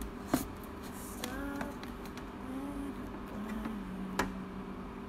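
Overhead projector's cooling fan humming steadily, with two sharp clicks: one about a third of a second in and one about four seconds in.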